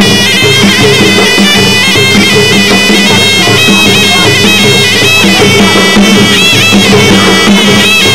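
Traditional Kun Khmer ring music: a sralai, the Khmer reed oboe, plays a melody that bends up and down over skor yaul drums.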